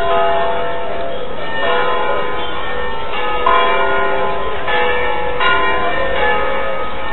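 Church bells ringing in a peal: a new stroke comes about every second, and the tones overlap as they ring on.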